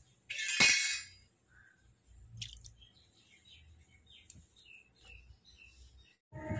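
A brief loud rustle of noise about half a second in, then birds chirping in short, faint calls several times.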